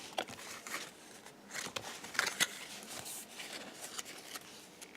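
Trading cards being handled and flipped through: soft swishes of card stock and scattered light clicks.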